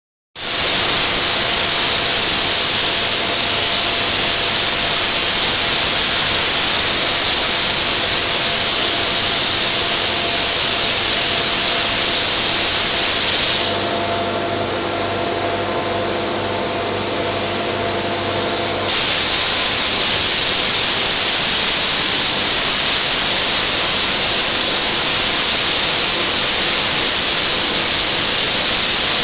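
Gravity-feed paint spray gun hissing steadily as it sprays a car bonnet. About a third of the way in the hiss drops away for about five seconds, leaving a lower steady hum, then comes back at full strength.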